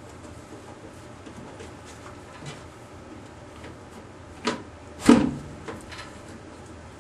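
Handling noises as the core-catching equipment is set up: faint scattered clicks, then two sharp knocks about four and a half and five seconds in, the second the louder.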